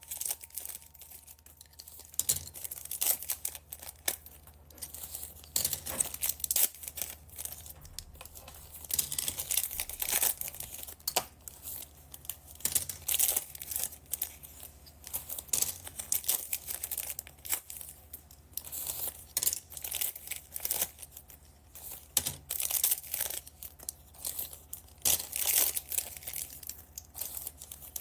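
Plastic packaging bags crinkling and being torn open by hand, in irregular crackly bursts, over a faint steady low hum.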